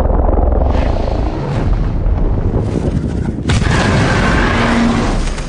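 Deep booming rumble of a giant horned monster bursting up out of desert sand, as a film sound effect. A sudden louder rush of noise comes in about three and a half seconds in.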